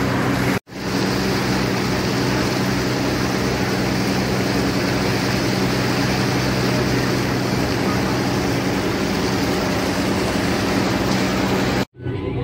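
Steady drone of a ferry under way at sea: a low engine hum with a rush of wind and water over it. The sound cuts out for a moment just after the start and again near the end.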